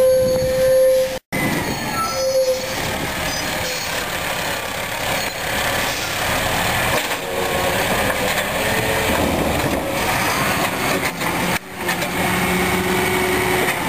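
Peterbilt 320 garbage truck with a Heil Formula 7000 automated side loader: engine running and the hydraulic grabber arm working as it reaches out and clamps a trash cart. Two short squeals in the first few seconds.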